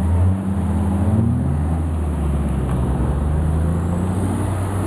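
Off-road 4x4's engine revving hard as it ploughs through deep mud, its pitch rising about a second in and then holding high and steady.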